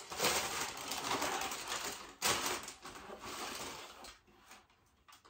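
Tissue paper rustling and crinkling as a boot is unwrapped and lifted out of a cardboard shoe box, in two loud stretches that die away about four seconds in.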